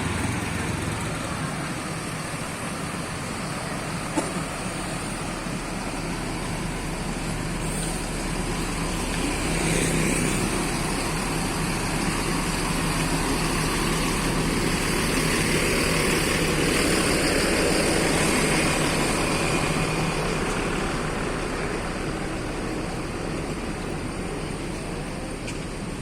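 Road traffic: motor vehicles running past in a steady stream, swelling louder as vehicles pass about ten seconds in and again through the middle stretch.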